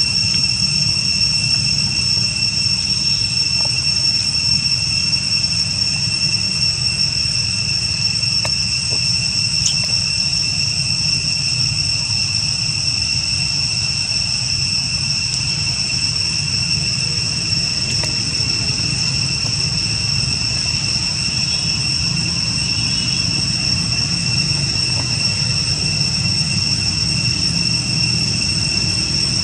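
Continuous high-pitched insect chorus, one unchanging drone, over a low steady rumble.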